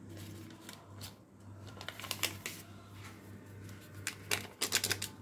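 Paper sachet of baking powder being shaken out over a glass bowl of batter: soft paper rustling with scattered crisp crackles, and a quick run of sharper rustles near the end.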